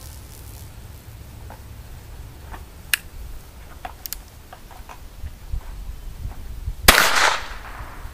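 A few light clicks, then a single shot from a Colt .22 Short single-shot derringer about seven seconds in: a sharp small-calibre pop with a brief ringing tail.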